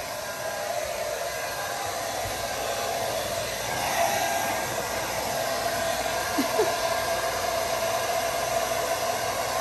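Handheld hair dryer running steadily while blowing on a wet puppy's fur: a constant whirring rush with a steady tone, swelling slightly a few seconds in.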